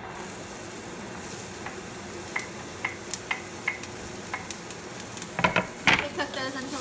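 Chopped hot peppers and garlic sizzling in oil in a hot frying pan as they are pushed off a wooden cutting board with a wooden spoon. Light wooden taps run through the middle, and a louder clatter and scrape comes near the end as the peppers drop into the pan.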